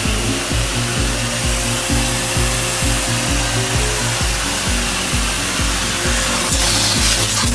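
Background music with a steady, fast beat of about four pulses a second and a stepping bass line, under a dense hiss.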